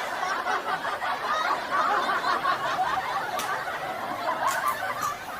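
Laughter and giggling mixed with indistinct voices, fading toward the end.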